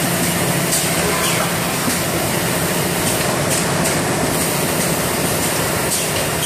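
JS 600A automatic rigid-box gluing machine running: a steady mechanical din of its conveyor and motors with a constant low hum and a high hiss, broken by a few brief faint clicks or hisses.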